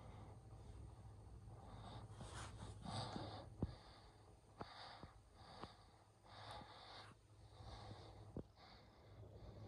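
Near silence: a faint steady room hum with soft puffs of noise and a few faint clicks.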